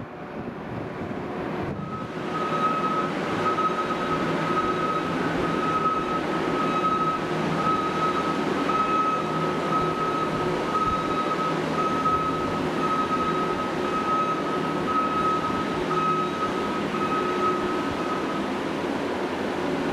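New Holland skid-steer loader's engine running steadily, with its reversing alarm beeping about once a second from about two seconds in until near the end.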